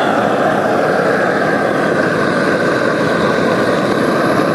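Propane weed-burner torch burning at full flame, a loud steady rushing noise with no let-up, its flame blowing onto water spilling over the rim of a stainless steel bowl.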